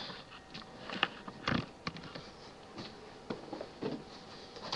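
Handling noise from a camera being moved and set down: scattered soft knocks and rustles, the loudest knock about a second and a half in.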